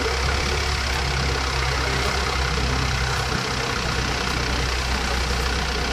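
Tour boat's engine running steadily while the boat is under way, with a steady rushing noise over it.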